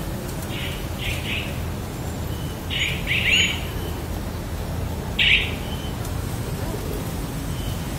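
Birds chirping in several short bursts, loudest about three and five seconds in, over a steady low background rumble.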